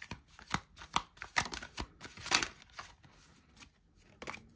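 Tarot cards being handled and drawn from the deck: a quick run of sharp taps and snaps over the first two and a half seconds, then quieter, with one more tap near the end.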